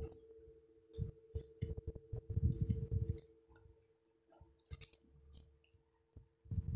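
A cloth dish towel being unfolded and smoothed flat on a table by hand: scattered rustles of fabric and wrapping with light clicks, in short irregular clusters, over a faint steady hum.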